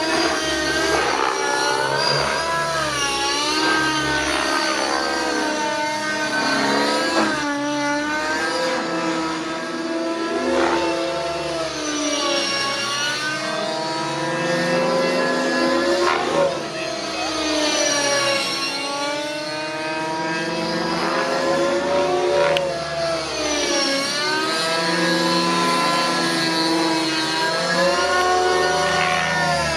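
O.S. MAX-55HZ two-stroke glow engine of a JR Vibe 50 RC helicopter running hard in 3D flight. Its pitch swoops up and down again and again as the load changes through the manoeuvres.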